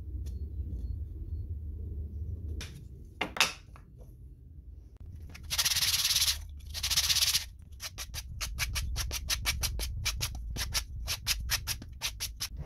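Sandpaper rubbed by hand on a small wooden disc: two long sanding strokes, then a run of quick short strokes, about four or five a second. Earlier, a couple of clicks and one sharp knock.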